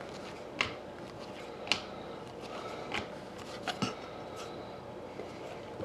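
Trading cards being handled as a pack is gone through: about six light clicks and snaps of card stock, spread over the few seconds, over a faint steady room hum.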